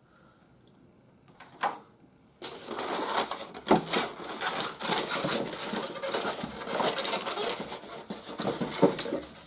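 Plastic toy packaging crinkling and rustling as it is handled and opened, starting about two and a half seconds in after a short quiet broken by a single click.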